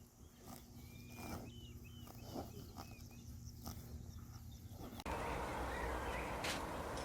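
Small birds chirping in short, high calls over a quiet background. About five seconds in, the sound cuts abruptly to a louder, hissing outdoor background with an occasional faint chirp.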